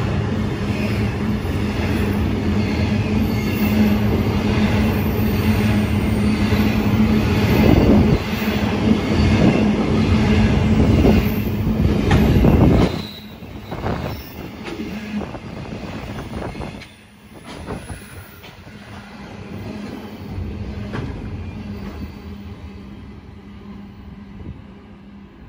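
A freight train's hopper wagons rumble and clatter past at close range. About thirteen seconds in, the sound drops suddenly as the last wagon goes by, and the train's rumble then fades as it draws away.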